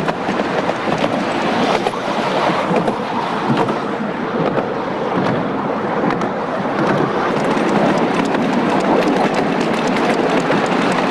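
Steady rumble and clatter of a 7.25-inch gauge miniature railway train running over its track, heard from a passenger seat.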